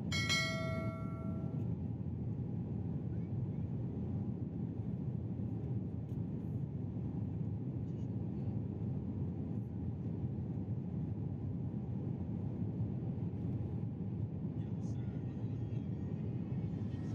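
Steady cabin noise of a jet airliner in flight: an even, low rumble of engines and airflow with no change. A brief pitched tone sounds just after the start.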